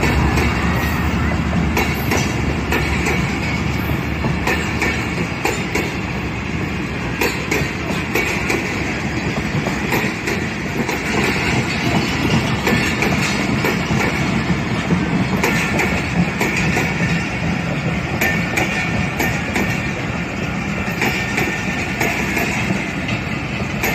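A Pakistan Railways express train passing close by: the diesel locomotive's engine hum fades within about a second, then the passenger coaches roll past with a steady rumble and wheels clicking over the rail joints.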